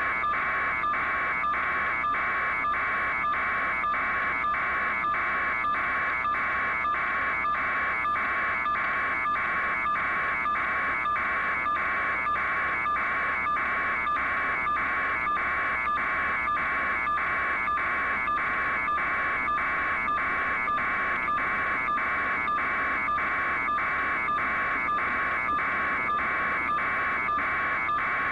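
Helicopter turbine whine, steady and high-pitched, with a regular pulse about twice a second.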